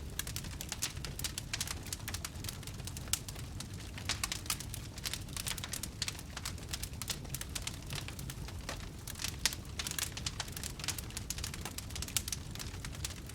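Fire crackling: dense, irregular pops and snaps over a steady low rumble.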